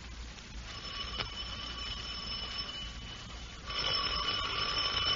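Electric doorbell sound effect ringing twice in an old radio drama, each ring about two seconds long, the second louder.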